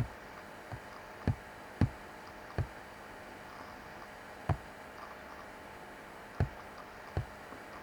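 About seven sharp isolated clicks, irregularly spaced, like single keystrokes on a computer keyboard, over quiet room tone.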